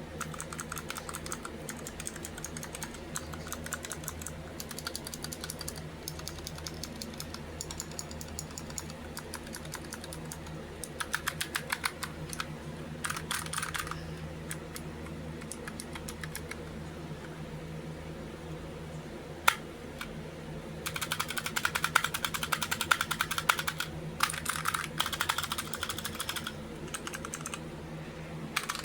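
Typing on a Razer Huntsman optical-mechanical keyboard with clicky keys. It starts with scattered runs of keystrokes and a faster burst, then a single key press about two-thirds through, then a long run of rapid typing near the end. A steady low hum sits underneath.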